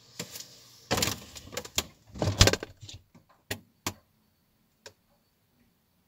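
A phone being handled and set down on a refrigerator's wire shelf, rustling and clattering, then the fridge door shutting with a thud about two and a half seconds in, followed by a few small sharp clicks.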